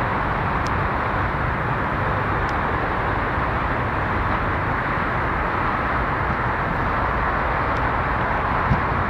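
UV tram running along its line: a steady rolling noise of wheels on rail with a low rumble and a few faint ticks.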